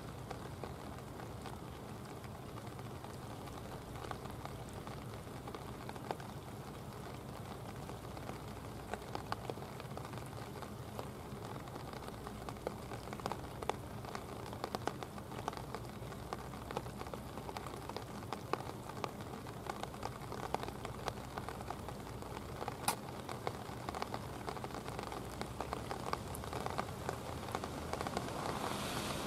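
Light rain pattering in many small scattered drops over a low steady drone from the approaching tugboat's engine; the sound grows somewhat louder near the end.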